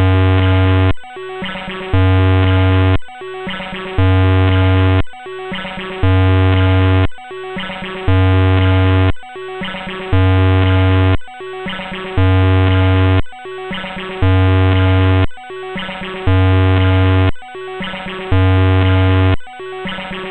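Harsh, distorted computer-generated music played by a homemade C++ effects program: a short digital loop that repeats about every two seconds, each cycle opening with a loud low buzz about a second long.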